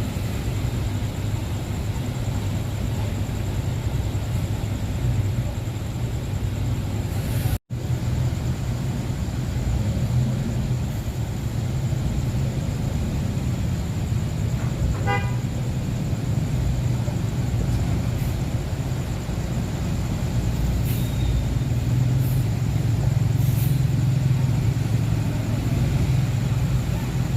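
Road traffic with heavy engines running steadily as a low rumble. A short horn toot sounds about halfway through.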